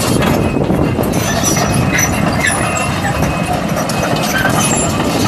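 Link-Belt 240 long-reach excavator's diesel engine running as the machine travels on its steel crawler tracks, a steady loud rumble with track clatter.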